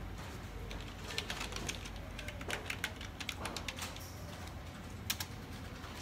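A run of light, irregular clicks and taps for about three seconds, then one more sharp click about five seconds in.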